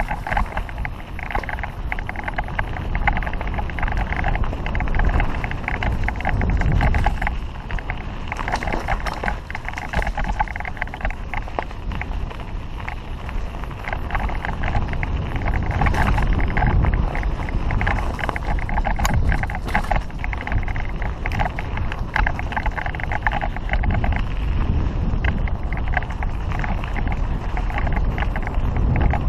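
An Avalanche 3.0 mountain bike being ridden on a dirt singletrack, heard from a GoPro on the rider's helmet. Wind buffets the microphone over a constant rattle and clatter of the bike and its tyres on the rough ground.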